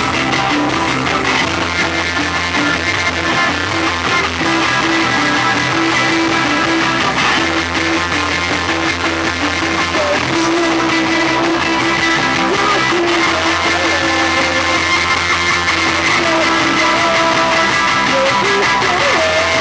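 Live rock band playing loud, driven by guitars over a repeating bass line. It is recorded through a camera's built-in microphone, which makes it sound rough.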